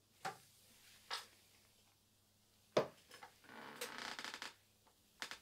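Faint, brief rustles and clicks in a quiet room: a sharp click a little before the middle, then a rustle lasting about a second, and another click near the end.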